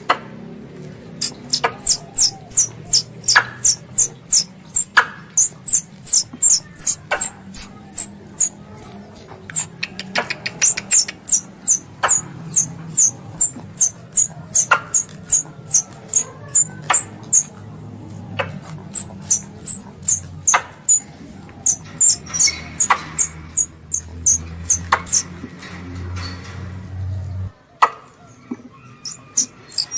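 Squirrel lure call: a long run of short, high, falling chirps repeated about two to three times a second, with sharp clicks every second or two. A low hum underneath cuts off near the end.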